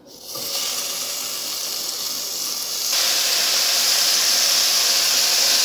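Raw bacon strips sizzling as they are dropped by hand into a hot saucepan, the sizzle getting louder about three seconds in as more strips go in.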